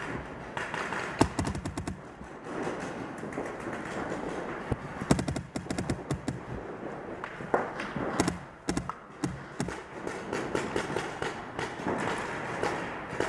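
Paintball markers firing rapid strings of shots, in several bursts: about a second in, again around five to six seconds in, and around eight to nine seconds in.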